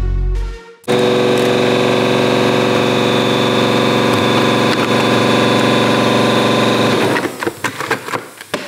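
Pneumatic random-orbital sander running at a steady speed, sanding the paint off a plastic bumper with 120-grit paper. It starts abruptly about a second in and stops about seven seconds in, followed by a few knocks and rustles of handling.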